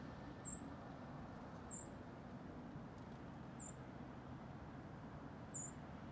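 A small bird giving four short, very high-pitched chip calls, spaced one to two seconds apart, over a faint, steady low background noise.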